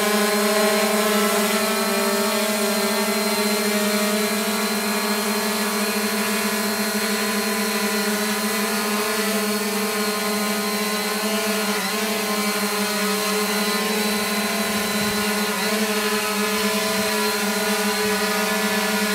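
Electric multicopter's motors and propellers humming steadily as it hovers, holding position. The pitch stays steady, wavering only slightly now and then.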